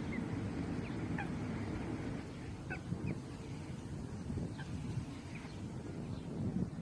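Birds calling in short, scattered high notes, several a second at times, over a steady low rumble.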